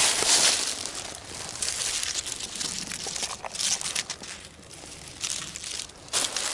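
Dry crinkling and crunching of papery white bark and dry leaf litter, in irregular bursts, loudest right at the start.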